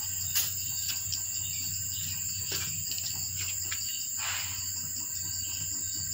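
Steady high-pitched chirring of insects over a low hum, with a few faint clicks and a brief rustle about four seconds in.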